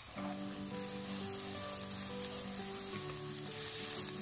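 Chopped onion frying in butter and olive oil in a pan, sizzling steadily as it is stirred with a spatula. Background music of held notes plays along with it.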